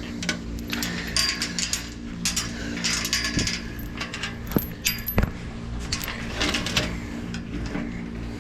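Steel barn gate hardware being handled, with scattered metallic clinks, rattles and jingles, over a steady low machine hum.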